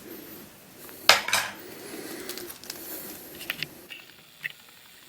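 Plastic clicks and taps from a plastic twisty puzzle cube being handled: two sharp clicks about a second in, then a few lighter ticks.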